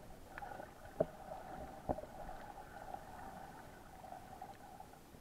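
Muffled underwater sound recorded through a camera's waterproof housing: a steady hum, with two sharp clicks about one and two seconds in.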